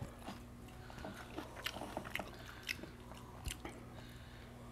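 Quiet eating at a table: chewing, with scattered soft clicks and ticks of a spoon and dishes as rice is eaten by hand and with a spoon. A faint steady hum runs underneath.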